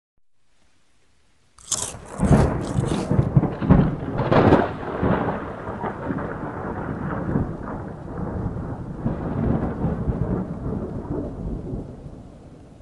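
Thunderstorm sound effect: thunder breaks suddenly about a second and a half in with sharp cracks, a second loud crack comes around four seconds, then rumbling thunder and steady rain that slowly fade.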